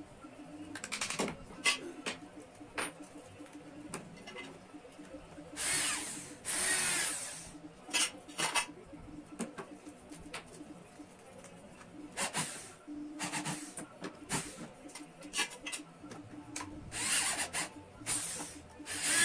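Power drill running in several short bursts, with small clicks and knocks in between.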